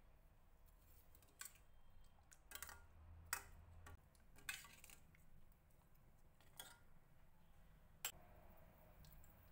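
A metal spoon tapping and clinking against a steel pan while a thick coconut curry is stirred: about six light, irregular clicks, the loudest about three seconds in.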